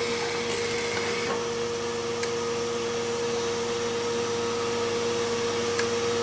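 Steady hum of chip-factory machinery with a constant mid-pitched tone under an even whir, and a few faint clicks.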